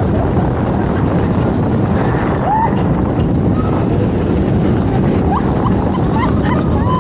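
Mack Rides Stryker Coaster train running at speed, heard from on board: a loud, steady rush of wind and track rumble on the rider's microphone, with a few brief shouts from riders.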